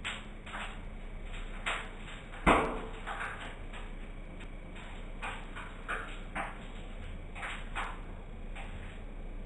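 Microwave oven running with a steady low hum, while an object heated inside gives off irregular sharp crackles and snaps. The loudest snap comes about two and a half seconds in.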